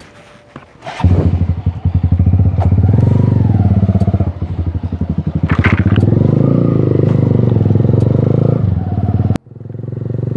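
Motorcycle engine running as the bike rides off, coming in suddenly about a second in and changing pitch with the throttle. It drops out abruptly near the end and returns straight away, running again.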